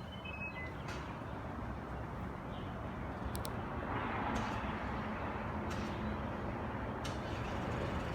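Steady rumble of highway traffic, swelling as a vehicle passes about four seconds in, with a few faint ticks.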